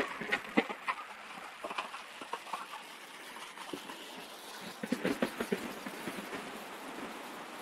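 Irregular light rattles and clicks from an e-bike jolting over a rough path, bunched in the first second and again about five seconds in, over a faint steady hiss of air.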